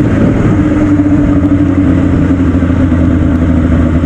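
Yamaha FZ6 Fazer 600's inline-four engine running steadily, its pitch dropping slightly about two seconds in.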